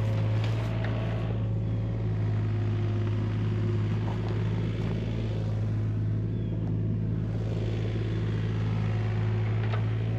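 Excavator's diesel engine running steadily, a constant low drone with no change in speed.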